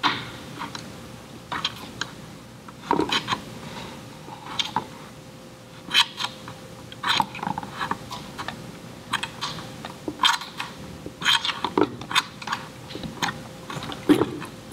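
Irregular small clicks and scrapes of a screwdriver working against a rubber tube and its fitting on a metal pump chassis, pushing the tube to break its seal before pulling it off.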